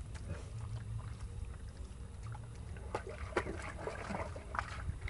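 Hands scooping and squelching through wet mud, with scattered short wet clicks and splats that grow busier about three seconds in, over a steady low rumble.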